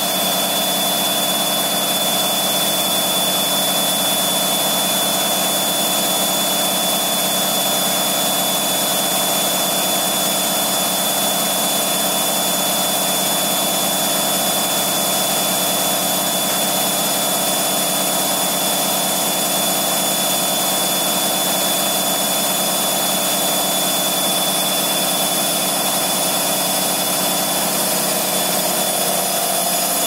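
Samsung front-loading washing machine running a rinse-and-spin cycle set to 1000 RPM while standing on rubber anti-vibration pads: a steady mechanical hum with a thin, high whine held at one pitch.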